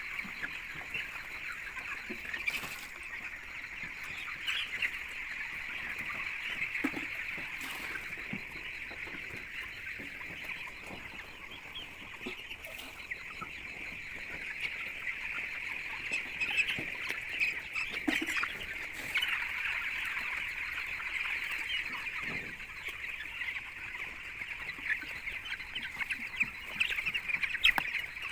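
A flock of chickens chirping continuously in a dense, high chorus, with a few brief knocks here and there.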